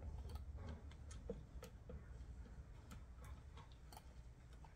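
Scattered light clicks and ticks from the wooden parts of a Spinolution Pollywog spinning wheel as its head is screwed onto the upright, over a low steady hum.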